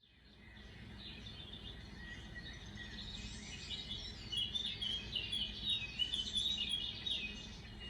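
Birds chirping and twittering over a low, steady background hum of outdoor noise. The sound fades in at the start, and the chirping grows busier about halfway through.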